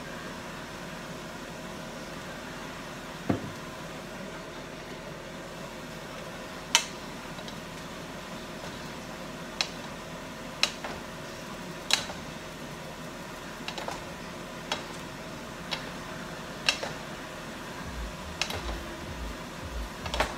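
Wooden spatula and spoon stirring and tossing food in a cooking pot, knocking sharply against the pot about a dozen times at an uneven pace, roughly once a second, over a steady background hum.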